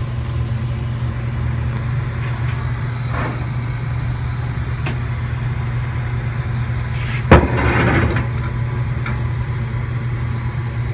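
Desktop PC's cooling fans running with a steady low hum as the machine boots. A single sharp knock about seven seconds in.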